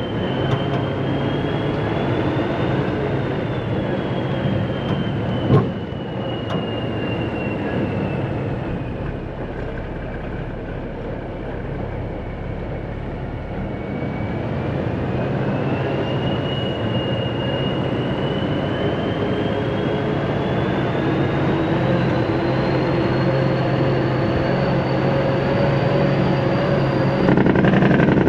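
Heavy earthmoving equipment working: a diesel engine running steadily under a high whine that slowly falls and rises in pitch. There is a single sharp click about five seconds in, and the machine grows louder near the end.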